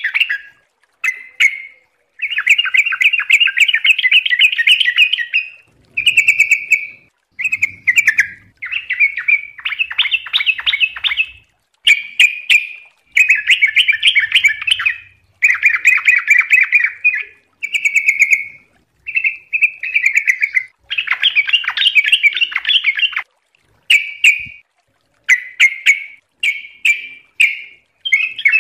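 Yellow-vented bulbul (trucuk) singing: a string of short song phrases, each a rapid run of notes lasting one to three seconds, with brief pauses between.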